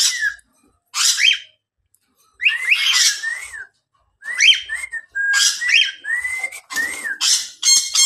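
White-faced cockatiel whistling and chattering: several short phrases of quick rising-and-falling whistled notes mixed with scratchy chatter, separated by brief pauses, with a couple of held level notes midway.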